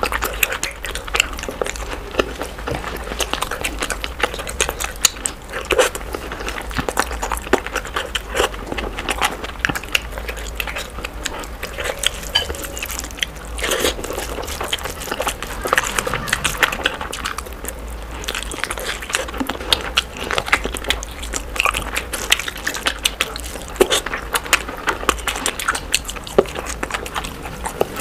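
Close-miked eating sounds, sped up to double speed: a dense run of quick chewing clicks, crunches and mouth smacks, with the squelch of fingers mixing rice and curry.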